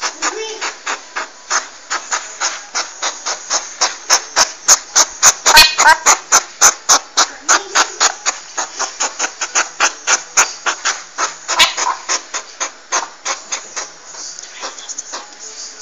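Porcupine making a fast, regular run of sharp clicks, about three to four a second, with a few short pitched calls among them; the clicking fades near the end.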